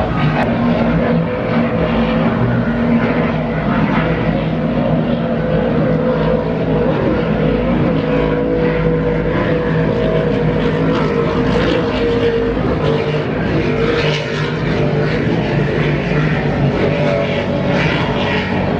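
Racing powerboat engines running as a steady loud drone, with several held engine tones over a wash of noise.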